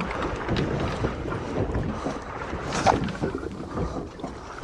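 Wind buffeting the microphone on a small boat at sea, with irregular knocks and clicks and one brief brighter sound about three seconds in.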